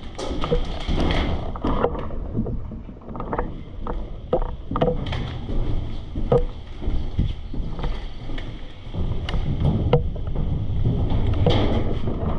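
Rustling and irregular knocks over a low rumble of wind on the microphone, the sound of a player and his gear moving.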